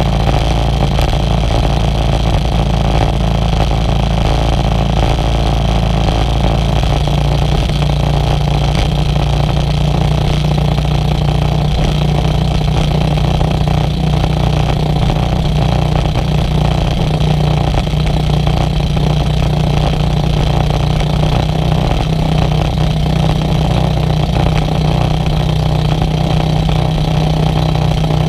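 Small outrigger fishing boat's engine running steadily under way, with water rushing along the hull. The engine note firms up slightly about seven seconds in.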